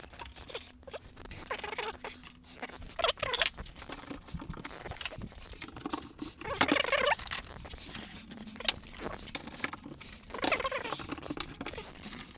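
Poster board and cardboard rustling and crinkling as they are handled and fitted, in irregular bursts with scattered small clicks and taps.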